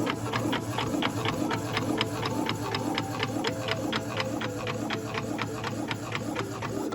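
Epson inkjet printer printing a test page, a steady run of even ticks about four to five a second over a low hum as the print carriage and paper feed work. The carriage shaft has been freshly cleaned and lubricated.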